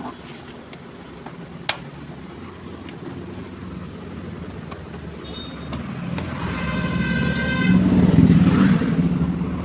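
A motor vehicle's engine swelling to its loudest about eight seconds in and then easing off, with a short high-pitched tone, like a horn or squeal, just before the peak. A couple of sharp clicks come near the start.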